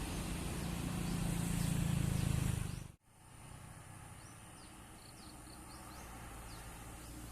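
A bus engine pulling up the climb, its low rumble growing louder, then cut off abruptly about three seconds in. After that, a few high bird chirps over a faint low rumble of distant traffic.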